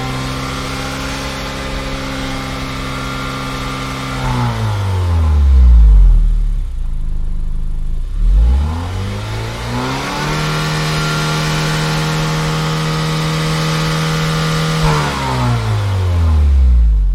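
Car engine running at a steady speed, then its revs falling sharply as the car slows, picking back up and holding steady, then falling once more near the end.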